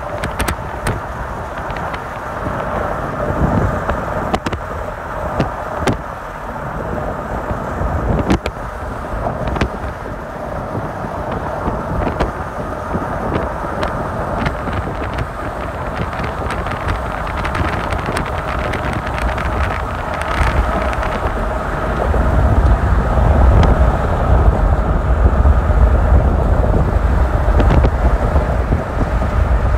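Steady running noise of a moving vehicle, with scattered clicks and knocks. A deep low rumble comes in about 22 seconds in and makes it louder.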